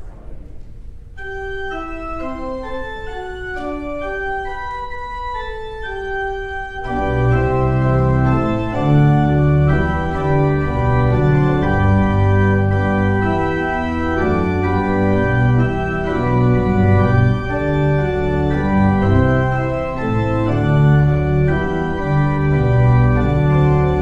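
Church organ playing a hymn: a single melodic line of held notes in a high register for the first few seconds, then the full organ with deep bass notes comes in about seven seconds in, noticeably louder.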